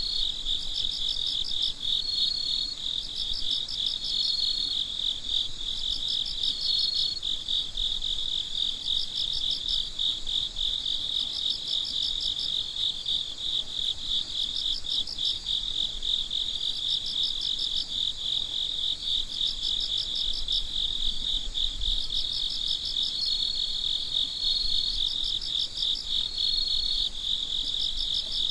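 Chorus of crickets: one steady, high, fast-pulsing trill, with other crickets chirping over it in slightly higher pulsed bursts about a second long, every two seconds or so.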